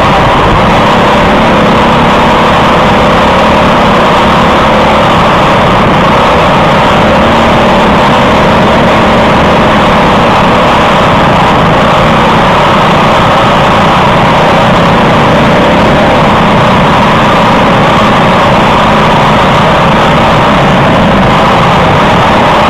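Onboard sound of a Briggs & Stratton LO206 kart's single-cylinder four-stroke engine running hard at racing speed, loud and continuous with small rises and falls in pitch.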